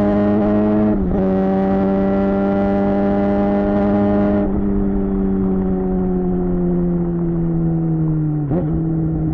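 Suzuki GSX-R600 K7 inline-four engine through a Yoshimura R11 exhaust under way, holding a steady pitch. A brief dip comes about a second in, then the pitch slowly falls as the bike eases off, with another brief dip near the end.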